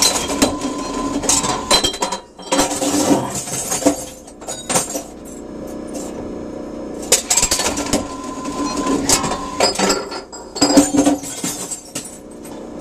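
Envipco CF1500G glass reverse vending machine running its cycle: a motor hum under loud clattering and clinking of glass bottles being broken, in two spells several seconds apart.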